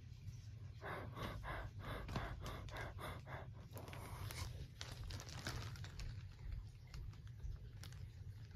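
Faint, quick rhythmic breathing close to a phone's microphone, about three breaths a second for a few seconds, followed by rustling and small clicks of the phone being handled and moved.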